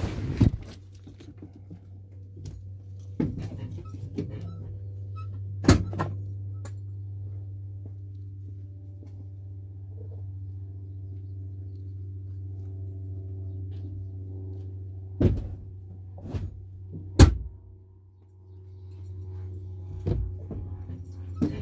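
Semi-truck diesel engine idling as a steady low hum, with several sharp knocks and thuds scattered through it.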